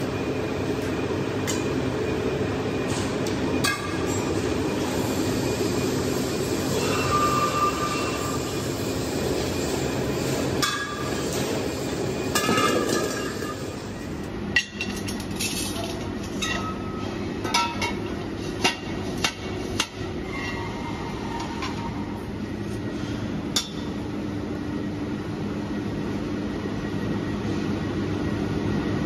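Steady machine noise of a steel-fabrication workshop, with metallic clinks and knocks of steel gas-cylinder parts being handled; several sharp metal knocks come in the second half.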